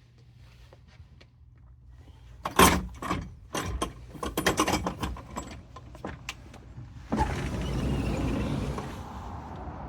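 A balcony sliding door being unlatched and pulled open, with a run of clicks and rattles, the loudest about two and a half seconds in. About seven seconds in a steady rush of outdoor air noise comes in suddenly as the door opens.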